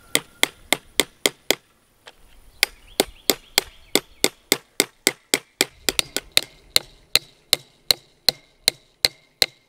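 Hammer driving 1¾-inch double-barbed steel staples into a wooden fence post, holding wire fence to it. It is a rapid run of sharp strikes, about four a second, with a short break about two seconds in.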